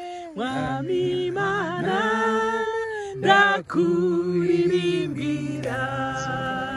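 Women singing a Christian praise song without accompaniment, in long held notes, with a short break between phrases about halfway through.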